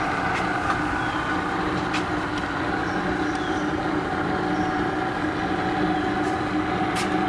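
Orbitform B-250 radial riveting machine running with a steady hum, with a few faint clicks.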